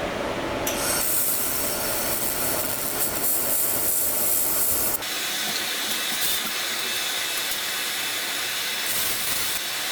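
Steady hissing noise that changes abruptly about five seconds in.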